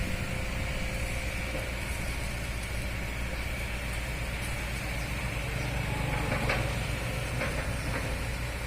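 Amphibious excavator's diesel engine running steadily, with a couple of light knocks about six and a half and seven and a half seconds in.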